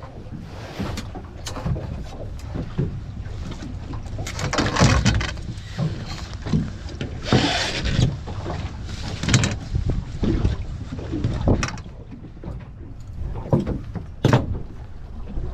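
Water sloshing and splashing against a small fishing boat, with irregular knocks and a steady low rumble underneath.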